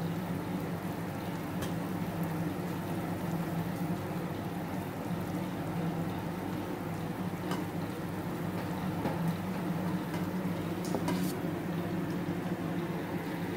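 Sugar syrup boiling in a steel pot with paneer discs bubbling in it, with a few light clicks of a steel slotted spoon against the pot as they are lifted out.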